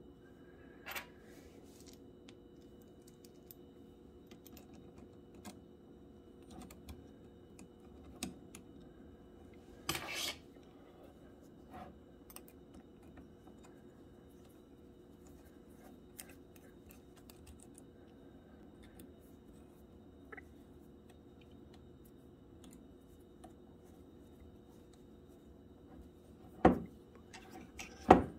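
Sparse small clicks and taps of an Allen key and metal engine parts being handled while screws are tightened into a model engine's crankcase, over a steady faint hum. There is a louder tap about ten seconds in and two sharper knocks near the end.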